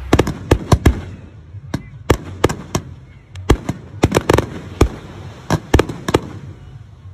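Fireworks going off: an irregular string of sharp bangs, about three a second, from aerial shells and rockets bursting.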